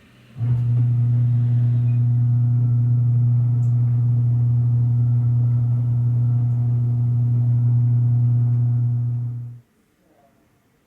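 A steady low hum that starts abruptly, holds level for about nine seconds and cuts off sharply.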